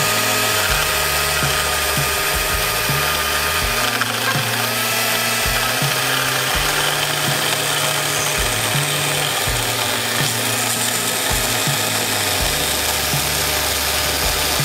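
Ryobi chainsaw with a 12-inch bar cutting into the end of a log to rough out a tenon. It spins up at the start and then runs at a steady high whine under load, dipping briefly about four seconds in before picking up again.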